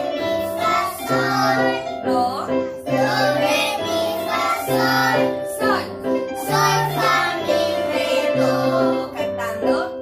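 A group of young children singing a song together while electronic keyboards play the tune, over a low bass note that repeats about once a second.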